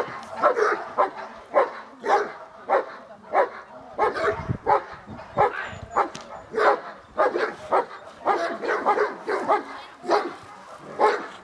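Great Dane barking hard and repeatedly, about one and a half barks a second without a break: defense barking at a helper in a protection vest during protection training.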